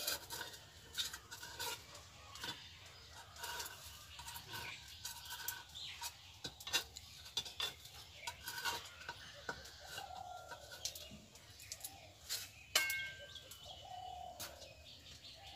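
A metal spatula scraping and clicking against a terracotta pan as cooked rice cakes are lifted out, in scattered short knocks. Chickens cluck and birds call in the background.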